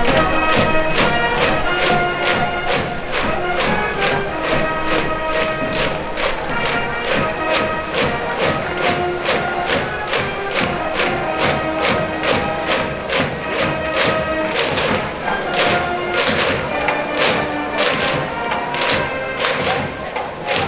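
High school brass band in the stands playing a cheering song: sustained brass melody over a steady drum beat.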